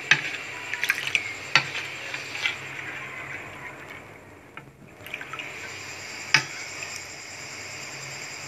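A metal spoon stirring a thin mixture of starch and water in a ceramic dish: liquid swishing, with a few sharp clinks of the spoon against the dish, the loudest about six seconds in.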